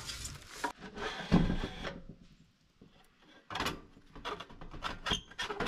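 Sheet-metal stovepipe being worked loose and pulled out of its metal roof collar: a scraping rustle, a short lull, then a run of sharp metal clicks and knocks in the second half.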